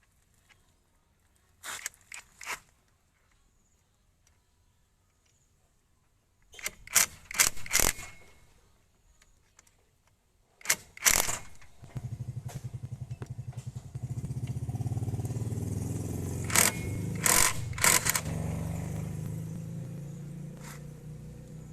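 Several sharp clicks and knocks, then a small engine starts about halfway through and runs with an even pulsing beat. It grows stronger for a few seconds and then slowly fades, with a few more knocks over it.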